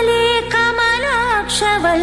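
Indian devotional music: an ornamented melody gliding and wavering in pitch over a steady drone.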